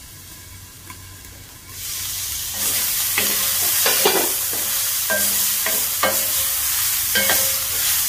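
Chicken and red bell pepper strips sizzling in a nonstick pan. The sizzle is muffled and quieter for the first couple of seconds while the pan is covered, then turns loud and open. From about two and a half seconds in, a spatula scrapes and knocks against the pan in irregular strokes as the stir-fry is tossed.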